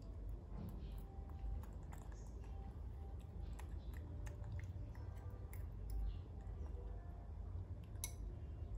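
Baby macaque eating porridge from a metal spoon: faint chewing and mouth smacking with scattered small clicks of the spoon, over a low steady hum.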